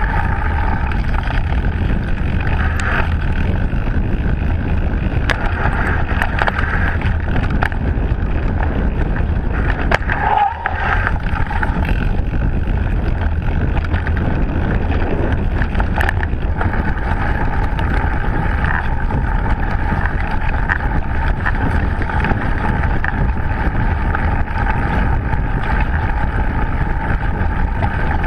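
Mountain bike rolling fast down a dirt forest trail: steady wind rush on the camera's microphone over the rumble of the tyres on the ground, with a few sharp knocks from the bike over bumps.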